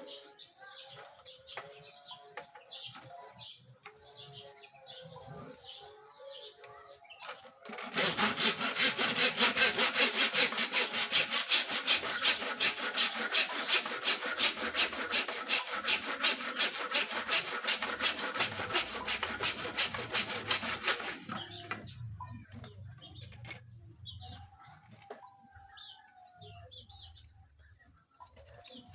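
Hand saw cutting through picture-frame stock with quick, even back-and-forth strokes, about two a second, starting about eight seconds in and stopping about thirteen seconds later. Before and after the sawing, pigeons coo and small birds chirp.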